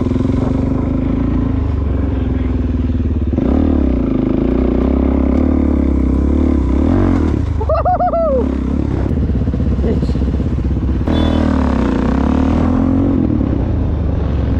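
Suzuki DR-Z400SM supermoto's single-cylinder four-stroke engine running under the rider on a dirt trail. The throttle and pitch change about three and a half seconds in and again about eleven seconds in.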